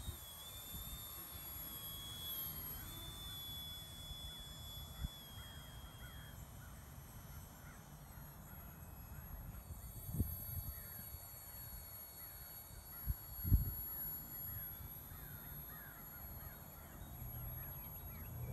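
Electric motor and propeller of an RC model airplane flying overhead: a thin, high whine that dips slightly in pitch and is clearest in the first several seconds. Wind rumbles on the microphone throughout, with two louder thumps about ten and thirteen seconds in.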